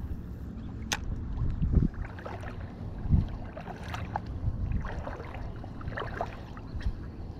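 Small waves lapping and sloshing in shallow sea water, with a rough low rumble of wind on the microphone and a few light clicks.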